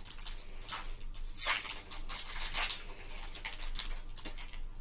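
Foil Pokémon booster pack wrapper crinkling and rustling as it is torn open by hand, in irregular crackles, the loudest about a second and a half in.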